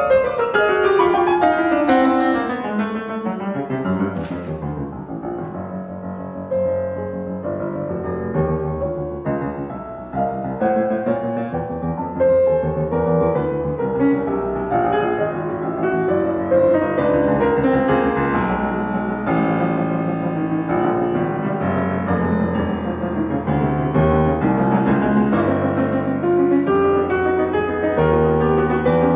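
Solo piano in a modernist classical piece, the rest of the ensemble silent. It opens with loud accented chords that die away over the first few seconds, then plays soft repeated low bass notes under a slow upper melody, and near the end moves to repeated chords.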